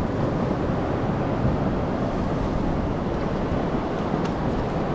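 Steady rush of sea surf along a rocky shore, with wind buffeting the microphone; a couple of faint ticks come about four seconds in.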